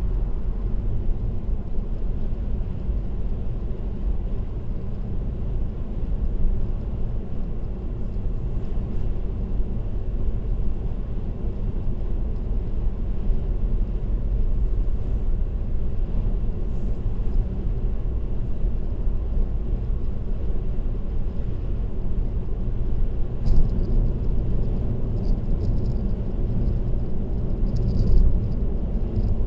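Steady low rumble of road and tyre noise from a car cruising on an expressway, as picked up by a dashcam. A few faint clicks come through in the last few seconds, with two slightly louder bumps near the end.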